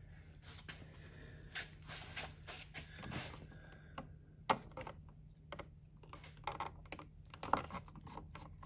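Irregular light clicks, taps and rattles of small plastic and metal parts being handled while a wall light switch and its wiring are taken apart, over a faint steady low hum.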